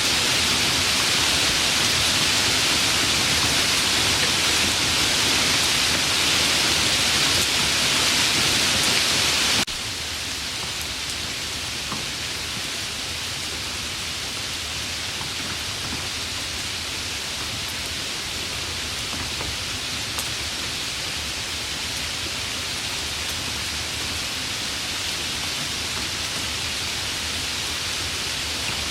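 Steady rain ambience for relaxation. About a third of the way in it cuts abruptly to a quieter, softer rain with less hiss, then runs on evenly.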